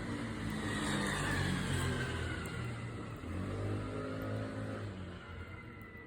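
A motor vehicle's engine passing by, its pitch falling as it goes past.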